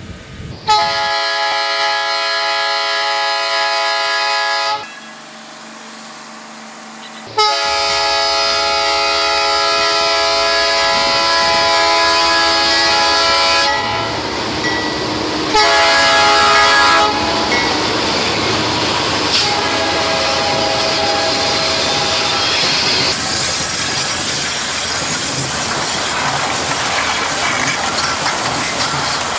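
GM GT22 diesel-electric locomotive sounding its horn as it approaches: a blast of about four seconds, then a longer one of about six seconds, a short one and a fainter one. The locomotives then pass, followed by loaded tank cars rolling by with a steady clatter of wheels on the rail joints.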